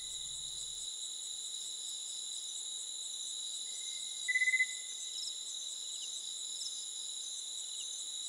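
Night chorus of crickets and other insects: steady high-pitched shrilling at several pitches at once, with one short, louder trill a little past four seconds in.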